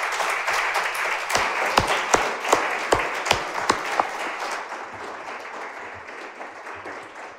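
Audience applauding, with a run of louder, sharper claps at about three a second in the first half; the applause dies away near the end.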